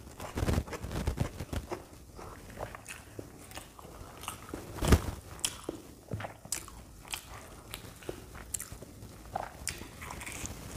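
Close-miked eating: crisp bites and chewing of deep-fried puri and a green chilli, many small crunches with the loudest about five seconds in.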